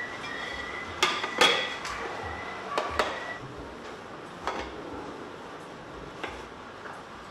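Plate and aluminium cake tin clinking and knocking against each other as they are handled, a few sharp strikes, the loudest about a second and a half in.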